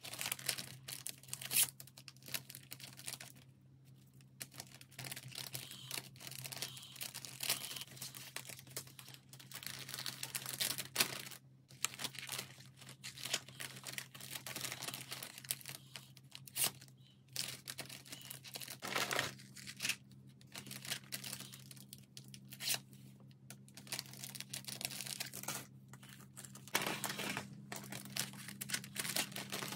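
Plastic food packaging rustling and crackling in hands in irregular bursts as packets from a meal-kit box are handled and opened, over a faint steady hum.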